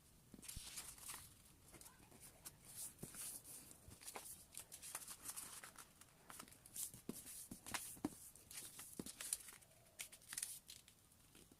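Sheet of paper being handled and folded by hand: quiet, irregular rustling and crinkling with short sharp crackles as creases are pressed.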